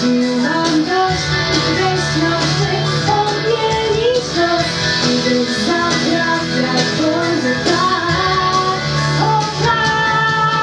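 A woman singing live over an instrumental backing track, her melody moving up and down. About nine and a half seconds in, she settles into a long held high note.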